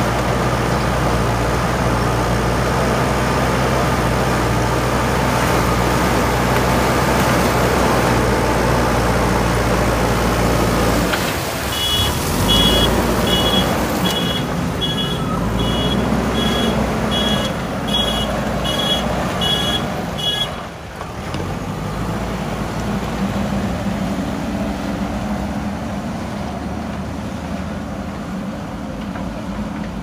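JCB 3DX backhoe loader's diesel engine running under load as the machine works gravel with its front bucket, with a reversing alarm beeping about one and a half times a second for several seconds in the middle. Near the end the engine is heard as a quieter, lower hum.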